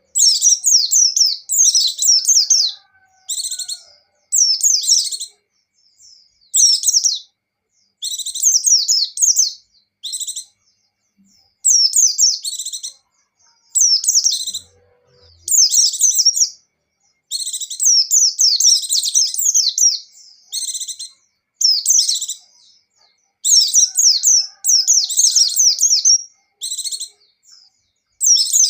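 White-eye (pleci) singing: a run of quick, high-pitched twittering phrases, each lasting about half a second to two seconds, with short pauses between them.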